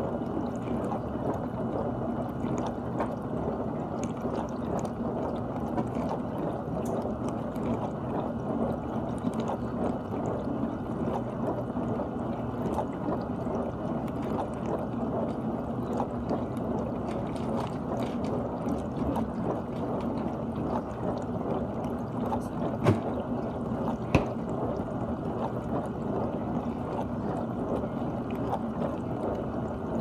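GE dishwasher running mid-cycle: a steady rush of water spraying and sloshing inside the tub, with a steady low hum under it. Two sharp clicks a little over a second apart come about three quarters of the way through.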